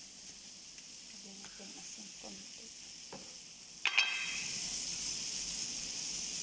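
Sliced onions and bell peppers sizzling in a frying pan. About four seconds in there is a sharp clink, and the sizzling gets louder as the vegetables are stirred.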